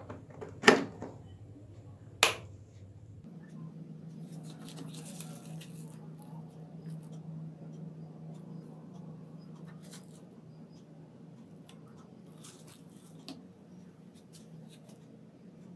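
Two sharp clicks of a power-strip rocker switch being flipped, then a faint steady low hum starts about three seconds in. A few light clicks of remote-control buttons follow later.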